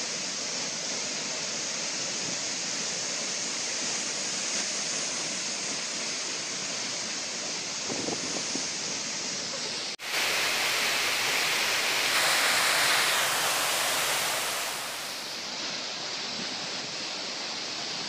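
Steady rushing roar of a waterfall plunging into its pool. About halfway it switches abruptly to a louder, brighter rush of a shallow stream running over rocks for about five seconds, then settles back to the waterfall's steady roar.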